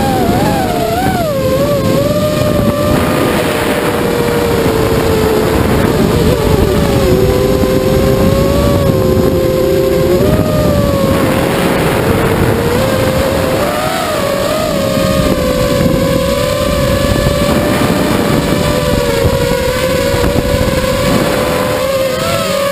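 Vortex 230 Mojo FPV racing quadcopter's brushless motors and propellers whining steadily in flight, the pitch wandering a little with small throttle changes and dipping for a few seconds midway before rising again, over a dense low rushing noise.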